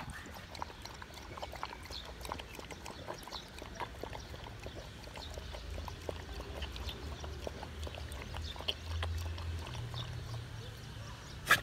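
A dog lapping from a handheld plastic tub: a run of small, irregular wet clicks over a low steady rumble, with one sharper click near the end.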